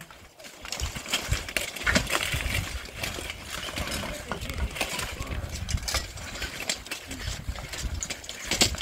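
Irregular metallic clanks and knocks of weapons striking steel plate armor during a full-contact armored melee, several blows a second with no steady rhythm.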